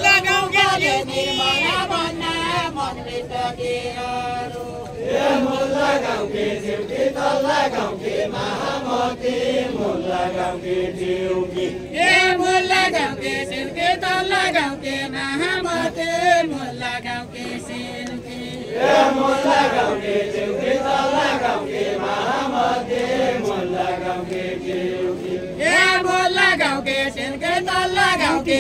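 A group of voices singing a Deuda folk song unaccompanied, the sung phrases held on steady notes and starting afresh about every seven seconds.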